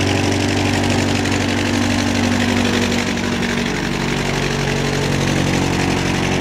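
Curtiss A-1 Triad floatplane's engine and propeller running steadily during its takeoff run across the water, its note changing a little about halfway through.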